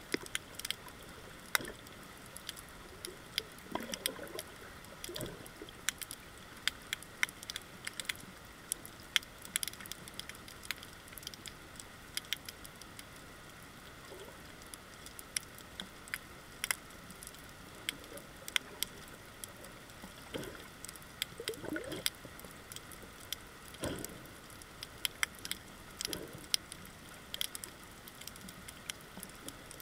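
Snapping shrimp crackling underwater on a coral reef: irregular sharp clicks over a steady hiss. A few low rushes of water come through, at about four to five seconds in and again a little past twenty seconds.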